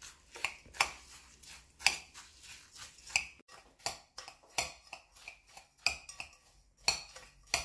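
Metal spoon clinking and scraping against a glass bowl, stirring crushed biscuits with melted butter, in irregular strokes about one or two a second.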